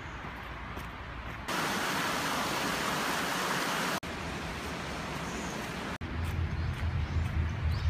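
Steady hiss of a mountain stream's rushing water, starting abruptly about one and a half seconds in and cutting off about four seconds in. Short cuts of quieter open-air noise lie on either side, and near the end comes a low, uneven rumble.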